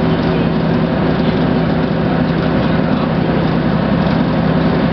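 Ikarus-Zemun IK160P bus's diesel engine running steadily while the bus drives along at an even speed, its pitch holding level with no gear change or revving.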